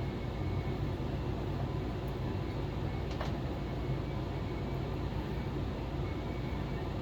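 A steady low machine hum with a faint hiss, and a single light click about three seconds in.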